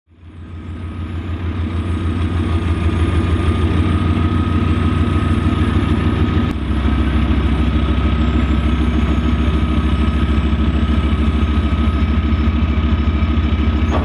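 Engine of a tracked armoured bridge-layer vehicle running steadily as it crawls up onto a floating pontoon bridge, a rapid low pulsing with a steady whine above it. It fades in over the first two seconds, and the engine note shifts lower about six and a half seconds in.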